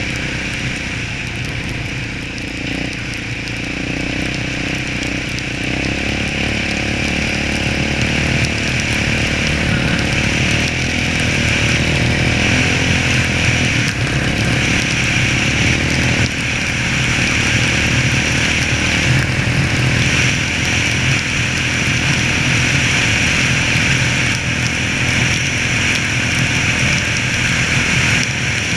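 Yamaha Raptor 700 SE quad's single-cylinder four-stroke engine running while the quad is ridden. It gets louder over the first several seconds, then holds steady.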